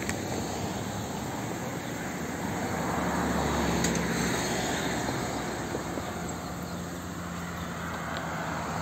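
Road traffic passing on a city avenue, a steady rush of tyres and engines. One vehicle grows louder about three seconds in and slowly fades.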